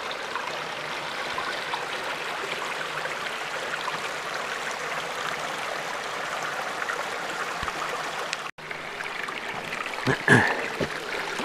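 Small mountain stream babbling and rushing steadily. The sound cuts out for an instant about eight and a half seconds in, and a short louder sound follows about ten seconds in.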